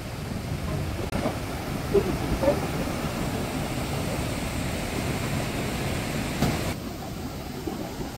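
Mountain river whitewater rushing over rapids through a narrow rock gorge, a steady, even rush of water.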